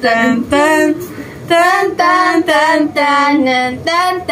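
A girl singing a song without accompaniment, holding each note and stepping from pitch to pitch.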